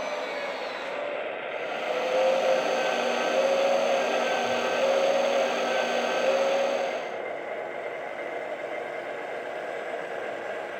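1/14-scale RC hydraulic excavator's built-in hydraulic pump running, its tone wavering up and down as the transmitter sticks work the hydraulics. It is louder from about two seconds in, then settles to a steadier, quieter hum about seven seconds in.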